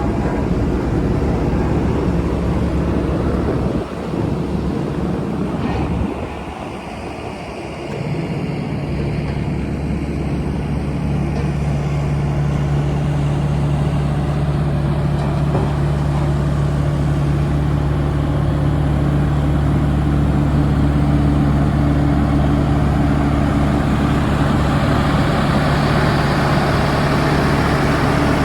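Bobcat S86 skid-steer loader's diesel engine running at a steady speed. The sound dips and shifts for a few seconds near the start, then holds an even drone.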